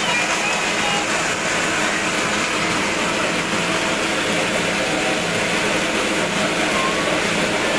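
Inorganic waste shredder (plastic crusher) running steadily with a loud, even mechanical noise.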